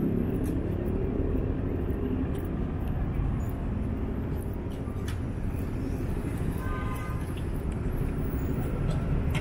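City street traffic rumbling steadily, with scattered light clicks and a short high-pitched sound about seven seconds in.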